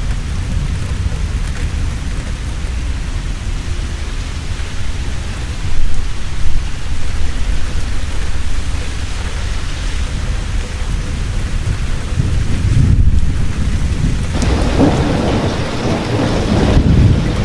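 Heavy rain falling steadily, with thunder rumbling deep under it; the thunder swells about six seconds in and again, with more crackle, near the end.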